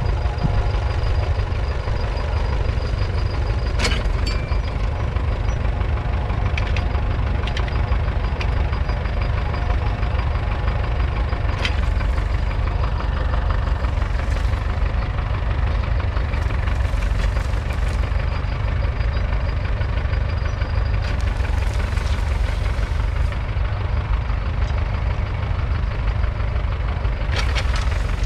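2.3-litre four-cylinder diesel engine of a 1968 International Harvester B275 tractor running steadily while it pulls a two-furrow trailed plough through the soil. A few short knocks sound over it.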